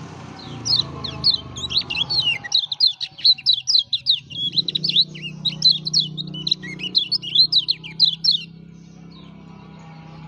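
Kecial kuning (yellow white-eye) singing a long, fast run of high chirping notes that stops suddenly near the end, over a steady low hum.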